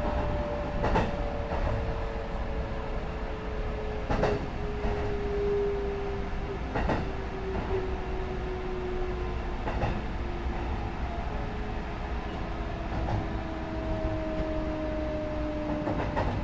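Interior running noise of a Sanyo Electric Railway 6000 series electric train: a steady rumble with wheels clacking over rail joints every few seconds. Two hum tones fall slowly in pitch as the train slows.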